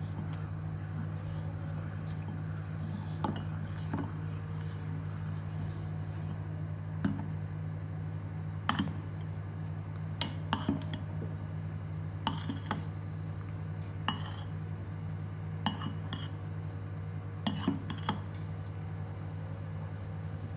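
Dishes and cooking utensils clinking now and then, about a dozen short sharp clinks at irregular intervals, over a steady low hum.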